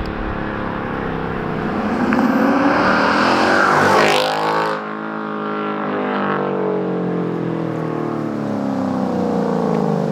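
2024 Ford Mustang Dark Horse's 5.0-litre Coyote V8 running through a Corsa double H-pipe with the factory resonator removed. The car accelerates by with its engine note climbing for about four seconds, drops in pitch as it passes, then falls slowly away.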